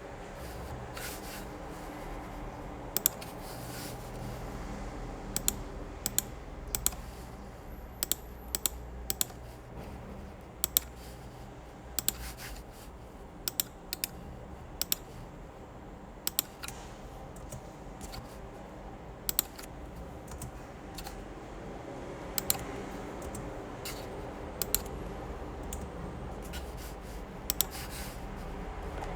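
Small repair tools clicking and tapping against a smartphone at irregular intervals, with some scraping, over a steady low hum.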